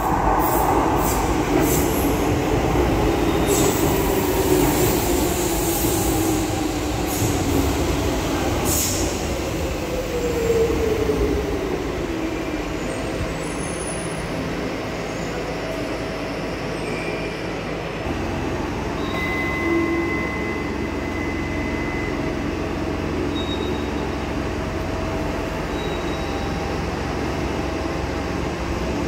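A Docklands Light Railway train running into the platform, its electric motor whine falling in pitch as it slows, with brake squeals and clicks in the first several seconds. It then stands at the platform with a steady electrical hum, and a rising whine starts near the end.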